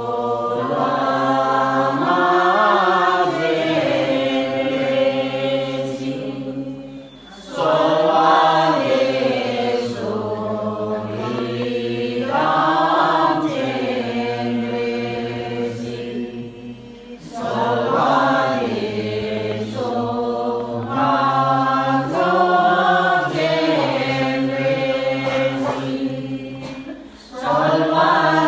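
A group of voices chanting Tibetan Buddhist prayers together in long, continuous phrases. The chant breaks off briefly for breath about every ten seconds.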